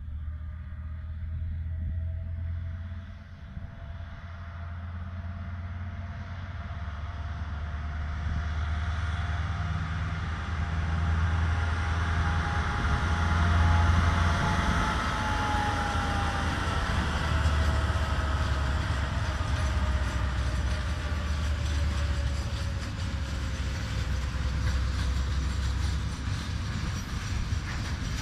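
KiwiRail DL-class diesel-electric locomotive hauling a freight train past: a low engine rumble with a whine that rises slightly in pitch as it approaches and falls after it passes, loudest about halfway through. The rumble and clatter of the hopper wagons rolling by follows.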